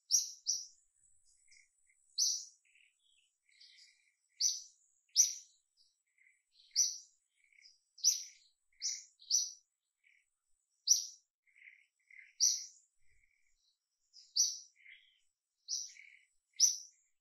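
A small bird chirping: short, high chirps repeated at uneven intervals, about one or two a second, with fainter lower notes in between.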